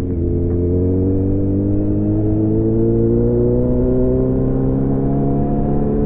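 Kawasaki Z900's inline-four engine pulling under steady throttle, its note climbing slowly as the bike gathers speed, after a brief dip right at the start.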